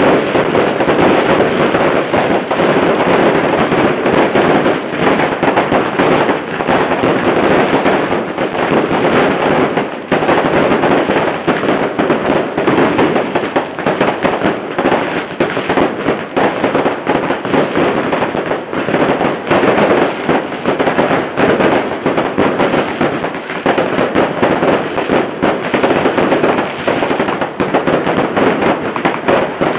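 Fireworks and firecrackers going off at close range in a dense, continuous barrage of rapid cracks and bangs that never pauses.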